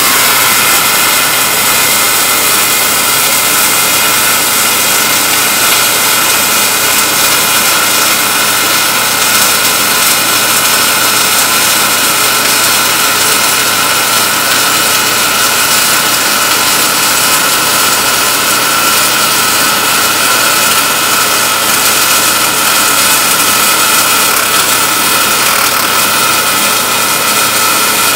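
MIG welding arc on 3/8-inch steel plate, running steadily as the bead is laid along a flat groove joint.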